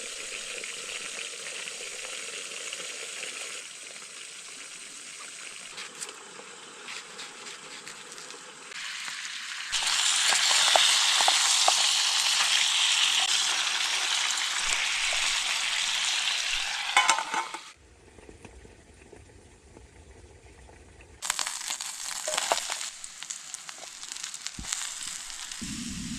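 Fish sizzling as it fries, a steady crackling hiss. It gets louder for several seconds in the middle, drops away briefly near the end, then comes back.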